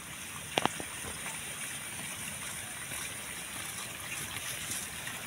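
Steady rush of running water, with a couple of faint clicks about half a second in.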